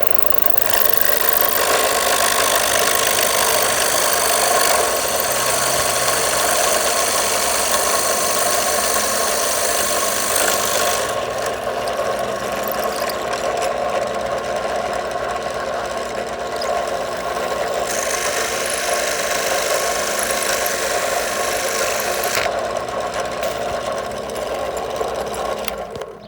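Electric drill running steadily with a wood bead-maker bit cutting a bead from a stick, the cutting noise easing and returning a few times. It stops suddenly near the end.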